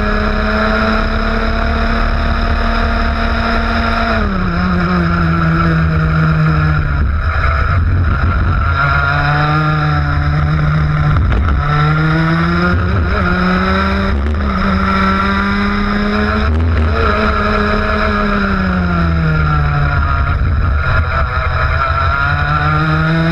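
ROK 125cc two-stroke kart engine at racing speed. It holds high revs, drops off about four seconds in as the kart slows for a corner, and climbs again, falling and rising several more times through the turns.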